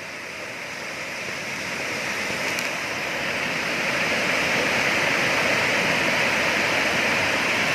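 Waterfall's falling water rushing as a steady hiss, growing louder over the first few seconds and then holding level.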